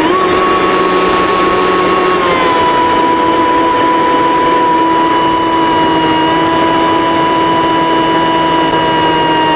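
Cessna 185's piston engine and propeller heard from inside the cabin in flight, a steady drone with a strong whine. The pitch rises a little right at the start, steps down about two seconds in and then holds steady, a change in engine power.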